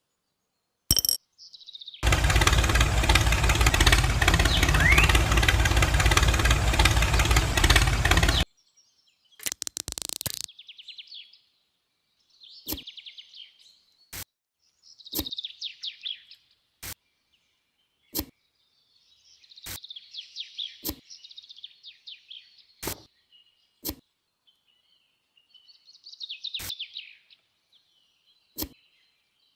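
Birds chirping, with sharp clicks every second or two. Near the start there is a loud, steady noise lasting about six seconds.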